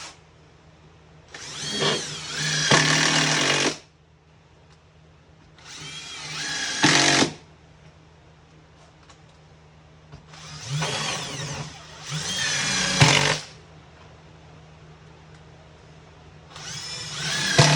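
Power drill driving #8 x 1.75" GRK screws into plywood sheathing in about five short runs. Each run rises in pitch as the motor spins up and cuts off sharply as the screw seats.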